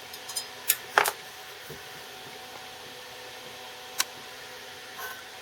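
Steady hum of a small fume extractor fan, broken by a few sharp clicks and taps: a cluster about a second in, then single ones near four and five seconds.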